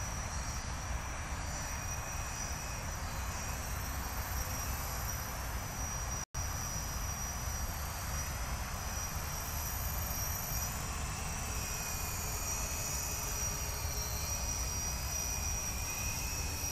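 Electric RC multirotor with a scale helicopter body hovering and manoeuvring overhead: a steady high whine from its motors and propellers that wavers slightly in pitch, over a low wind rumble on the microphone. The sound cuts out for a moment about six seconds in.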